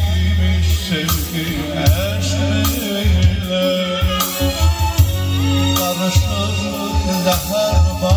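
Live Azerbaijani song played through a PA: an electric violin over electronic keyboard accompaniment, with a steady beat and heavy bass.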